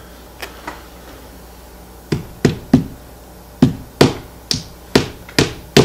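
Small upholstery hammer tapping a small-headed brad through fabric into a bentwood frame. Two faint clicks come first, then about nine sharp taps starting about two seconds in, coming faster and more evenly toward the end.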